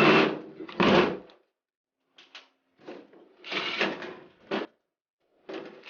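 Handling noise from the power window switch assemblies: a few short bursts of plastic clattering and scraping as the parts are picked up and moved.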